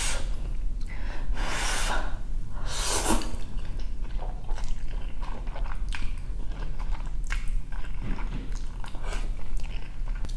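Close-miked eating of birria ramen noodles with chopsticks: two long wet slurps in the first few seconds, then chewing with many small clicks.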